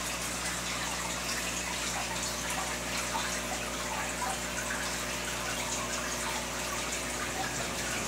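Aquarium air bubbles rising in streams and bubbling steadily at the water surface, with a low steady hum underneath.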